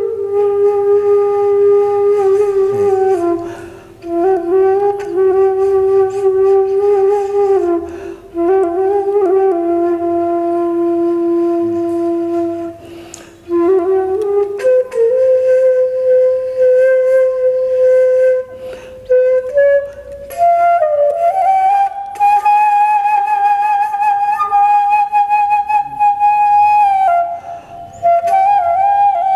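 Background music: a flute-like wind instrument playing a slow melody of long held notes, sliding between pitches, with short pauses between phrases.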